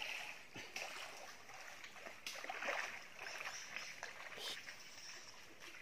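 Footsteps wading through a shallow stream, the water sloshing and splashing in irregular swells.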